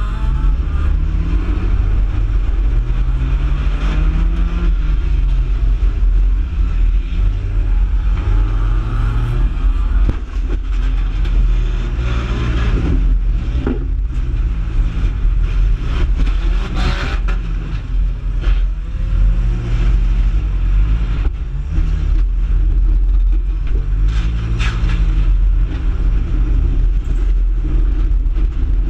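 Mini stock race car's engine heard from inside the cockpit, revving up and dropping back again and again over a heavy low rumble, as the car accelerates and lifts around a figure-8 track. A few brief clatters cut through the engine noise.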